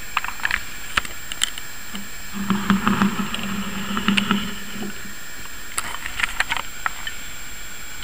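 Scattered clicks and light knocks as a brass Schatz 400-day clock is handled and turned over, in clusters near the start, in the middle and again later. A low hum runs for a few seconds in the middle, over steady background hiss.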